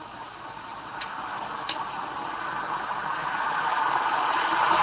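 A motor vehicle approaching on a nearby road, its engine and tyre noise swelling steadily louder. Two light, sharp ticks sound about a second in and again just after.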